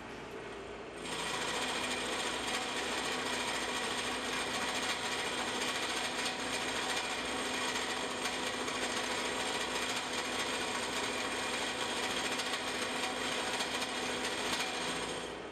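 Carbide-insert shell mill on a vertical milling machine face-milling a 4140 medium carbon steel block with a light cut of about 10 to 15 thousandths of an inch. The steady cutting noise, with several high steady tones in it, starts about a second in as the cutter enters the metal and fades near the end as it leaves the cut, over the quieter sound of the running spindle.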